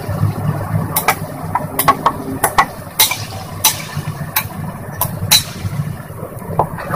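A metal spoon knocks and scrapes against a bowl and a cooking pot as tomato paste is spooned in and stirred. About a dozen sharp, irregular clicks sound over a low steady hum.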